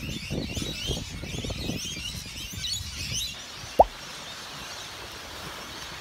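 Rainbow lorikeets chattering in a tree with many short, high squeaky calls over low wind rumble. A little past three seconds in the birds give way to a steady rushing noise, and shortly after a single short, loud tone slides steeply down in pitch, like a bloop.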